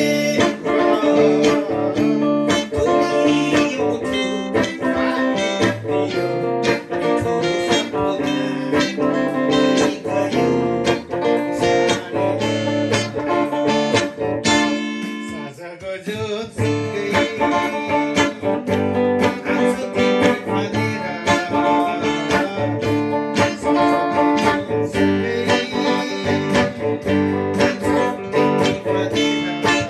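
Gretsch guitar playing a melody, notes plucked and strummed continuously, with a brief softer dip about halfway through.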